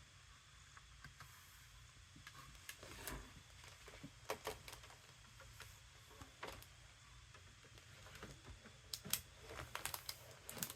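Faint, scattered light clicks and taps of paper and a thin metal cutting die being handled and set in place, with a short flurry of clicks near the end.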